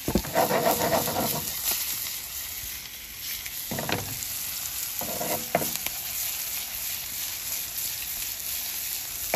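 Ribeye steak sizzling in garlic butter in a smoking-hot skillet, a steady frying hiss. A few short knocks come about four and five seconds in.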